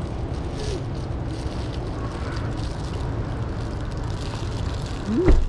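Steady low rumble of wind buffeting an outdoor microphone, with a short thump and a brief rising pitched sound near the end.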